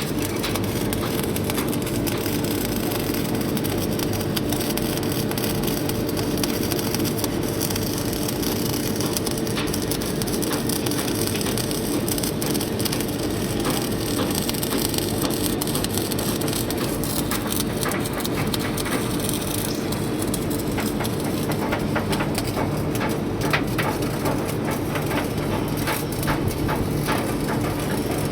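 CO2 (MIG) welding arc crackling and spattering steadily, with a continuous hum underneath.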